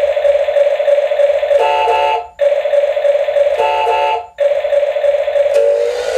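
Electronic sound effect from a toy RC forklift's small built-in speaker: a steady buzzy tone followed by a brief warbling chirp of several tones, repeating in a cycle of about two seconds.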